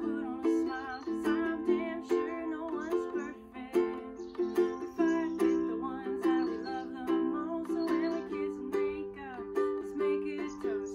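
Ukulele strummed in a steady rhythm, playing simple chords in the key of C.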